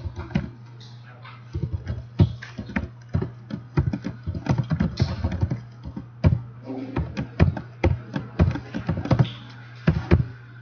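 Typing on a computer keyboard: quick, irregular keystrokes in bursts, over a steady low hum.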